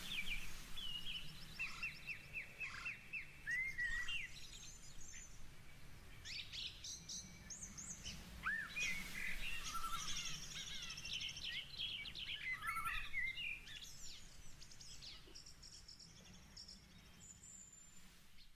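Several birds chirping, trilling and whistling over a steady low background noise. The sound slowly fades out toward the end.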